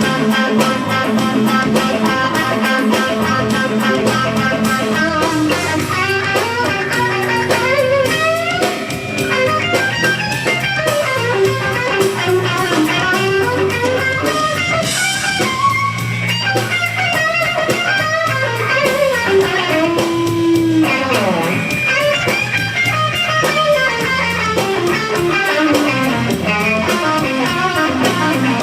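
Live electric blues guitar solo over bass guitar and drums, the lead line full of bent notes.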